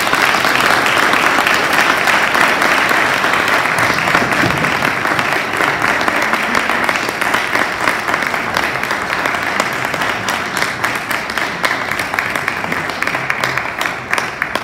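Audience applauding, a dense steady clapping that slowly thins toward the end.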